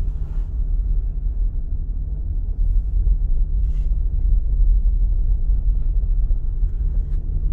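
Steady low rumble of a car heard from inside the cabin, its engine running.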